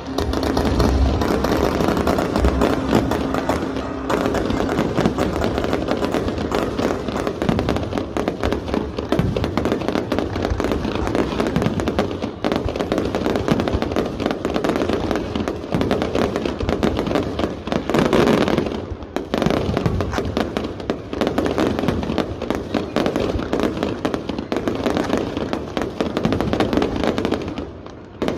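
Fireworks display: a dense, continuous run of bangs and crackles, swelling louder about two-thirds of the way through.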